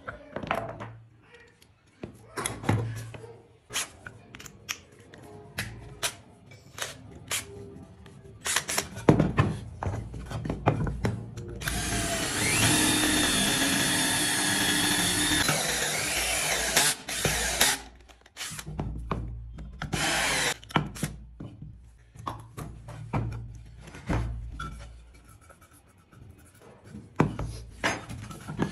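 A handheld power drill boring into a round wooden disc runs steadily for about five seconds midway through, then briefly again a few seconds later. Around it are scattered clicks and knocks of tools and wood being handled.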